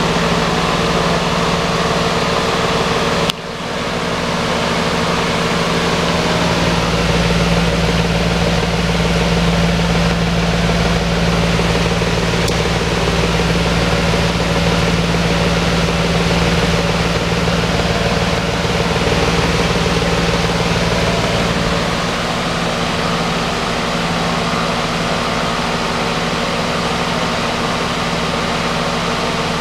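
Large custom-built wall-mounted exhaust fan running steadily: a rush of air over a steady motor hum, with a brief sharp drop in level about three seconds in.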